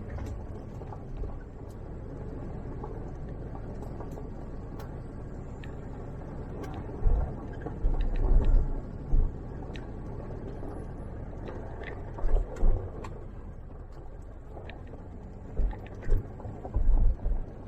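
Vehicle driving on a rough back road, heard from inside: a steady low road rumble with bouts of heavier low jolting and rumble about seven, twelve and sixteen seconds in.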